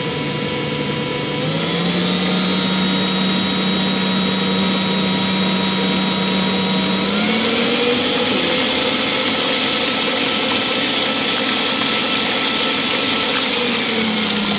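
Electric mixer on a stand beating batter in a bowl, its motor whining steadily. The pitch steps up as the speed is raised, about a second and a half in and again about seven seconds in, then drops back a step near the end.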